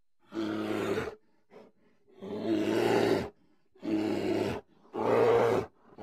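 A large animal gives deep growling roars: four bursts about a second long each, with a short faint one after the first.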